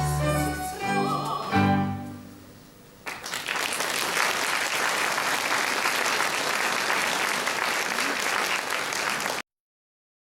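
The closing bars of an operetta duet, with singers and chamber orchestra holding a final chord, die away. Audience applause starts about three seconds in and cuts off abruptly near the end.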